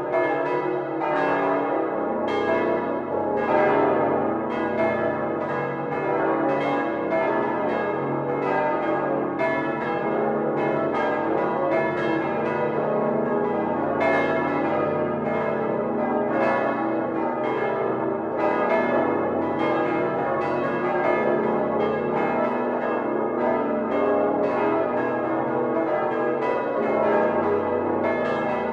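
The Utrecht Domtoren's bronze church bells swing together in a full peal, all bells at once, heard from inside the bell chamber. Strikes fall several a second and overlap irregularly over a continuous hum of ringing.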